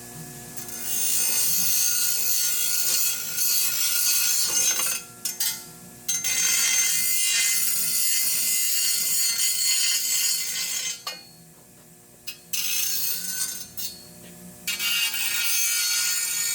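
A power cutting tool cutting through steel Unistrut channel in four long bouts, each a loud, steady noise, with short pauses between them and the tool's motor humming underneath throughout.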